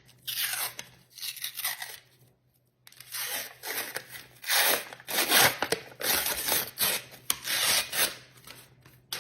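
A series of short tearing rips, each a noisy swish that falls in pitch, with a pause about two seconds in.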